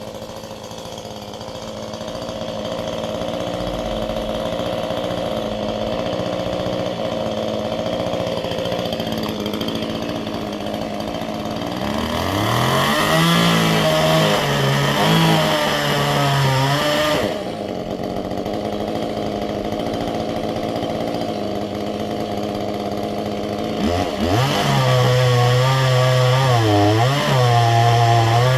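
Chainsaw running steadily, then revved up twice, about twelve and twenty-four seconds in, its pitch wavering up and down as it cuts into the pine.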